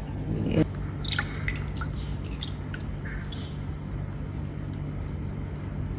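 Tea being poured into a glass: soft liquid trickling and dripping with a few short, light ticks, over a steady low hum.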